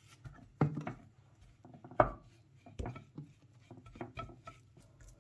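Silicone basting brush mixing ground spices and oil in a ceramic dish, with irregular taps and scrapes of the brush against the dish. The loudest knocks come just under a second in and about two seconds in.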